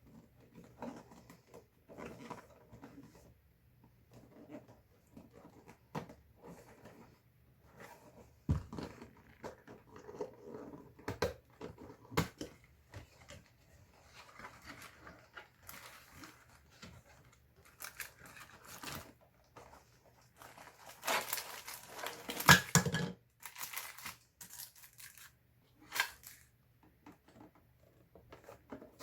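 Packaging being opened and handled by hand: wrapping tears and crinkles, with scattered taps and rustles. The longest and loudest tearing comes about two thirds of the way through.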